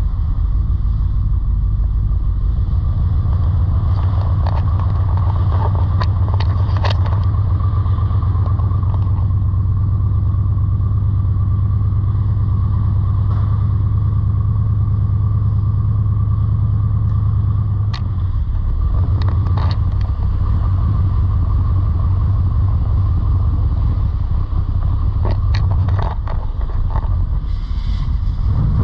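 A car engine running steadily as the car rolls slowly along, heard from inside its cabin as a deep, even hum. A few short clicks and knocks come a few seconds in, again near the middle and near the end.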